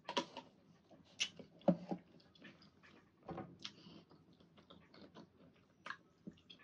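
Faint close-up chewing of a mouthful of fruit: scattered soft wet clicks and smacks of the mouth, a handful of them spread irregularly through the pause.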